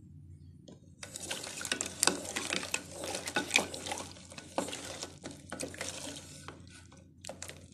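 Wooden spatula stirring jaggery syrup with whole fennel seeds in a metal pot, scraping and knocking irregularly against the pot; it starts about a second in.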